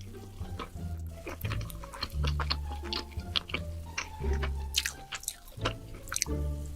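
Close-miked wet chewing and mouth clicks from eating pizza and burger, over background music with held low bass notes.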